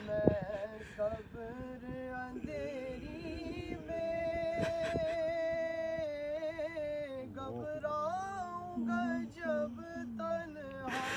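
A single voice chanting a slow, ornamented devotional melody, sliding between notes and holding some of them long, with one note held for a couple of seconds midway.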